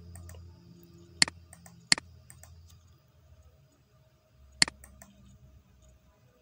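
Computer mouse button clicking: four sharp clicks spread over several seconds, with fainter small ticks between them.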